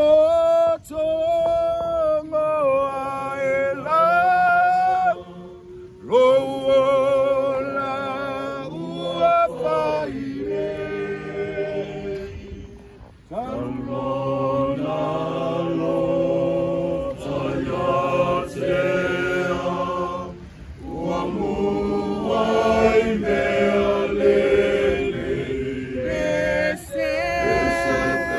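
A choir of mixed voices singing a slow hymn-like song in harmony, without instruments, in long held phrases with short breaks about five seconds in and again around twelve seconds.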